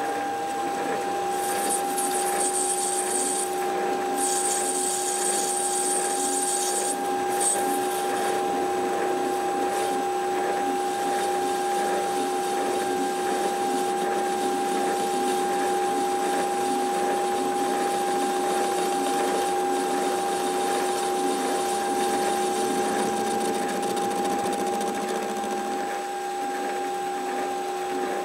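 Metal lathe running with a steady tone while a turning tool faces a mild steel valve eccentric mounted on a mandrel. Hissing bursts of cutting come in the first several seconds.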